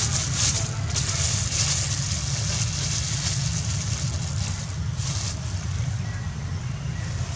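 Steady low rumble of wind buffeting the microphone, with several short spells of high hiss.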